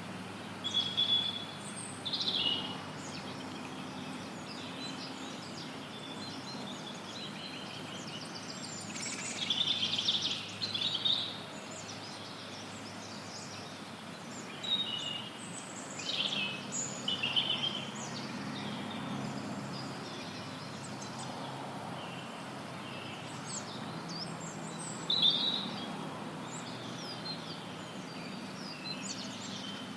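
Several songbirds chirping and trilling in scattered short phrases over a steady hiss of added white noise.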